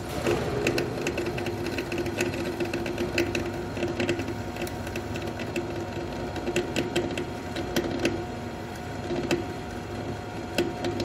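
Manual engine lathe running at low speed, its chuck spinning while a tool cuts a steel angular pin, with a steady hum and bouts of irregular clicking and ticking from the cut. The workpiece is not gripped properly in the chuck and is wobbling.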